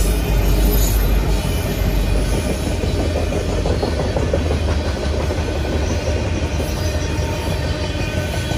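Coal train rolling past at speed: the EMD diesel locomotives go by at first, then a long string of coal hopper cars follows with a steady heavy rumble and rapid wheel clicks over the rail joints.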